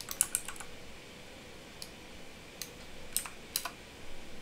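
Typing on a computer keyboard: a quick run of keystrokes at the start, then single key clicks spaced out through the rest.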